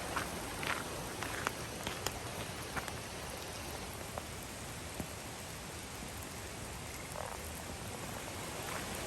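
Steady rain falling, an even hiss with scattered louder drops ticking.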